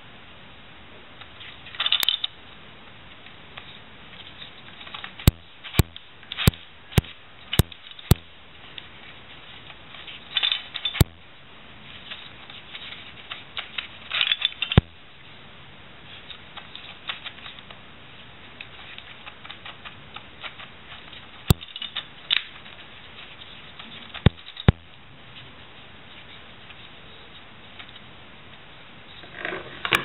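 Plastic Latch Pyraminx twisty puzzle being turned by hand: scattered sharp plastic clicks, with a quick run of about six clicks a few seconds in, between short scraping rattles of the layers turning.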